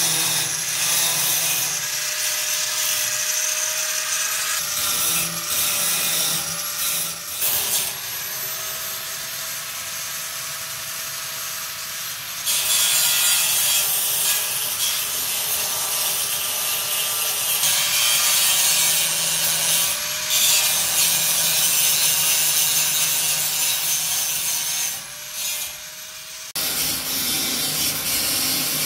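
Continuous rasping, scraping tool work, getting louder about twelve seconds in and dropping away briefly near the end before carrying on.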